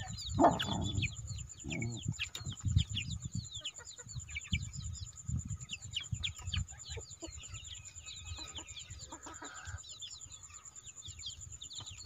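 Young chickens peeping constantly in many short, high, falling cheeps, with a few lower hen clucks now and then and a low rumble underneath.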